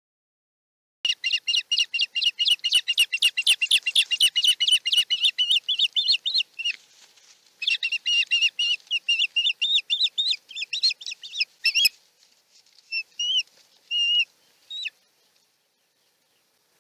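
Ospreys calling: rapid runs of shrill, high chirps, about five a second, in two long bursts, then a few separate calls near the end. The calling is the excited kind heard at the nest as food is brought to the female. There is a single sharp knock at the end of the second burst.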